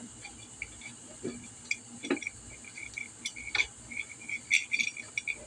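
Light metallic clicks and taps as the 80cc big-bore cylinder of a GY6 scooter engine is worked over its studs and cam chain, with two dull knocks in the first half. The clicks come quicker and busier in the second half, over a steady high hiss.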